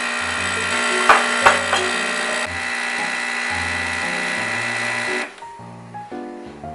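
Nespresso Pixie capsule machine's pump running steadily with a high whine while brewing a lungo, with two sharp clicks about a second in; it stops abruptly about five seconds in. Soft background music plays underneath.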